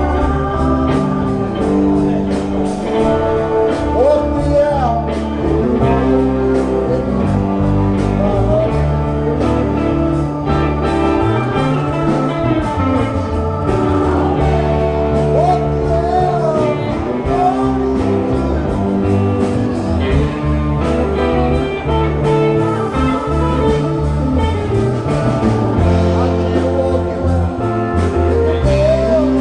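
Live rock band playing electric guitar, bass guitar, keyboard and drums, with a sung lead vocal over the instruments.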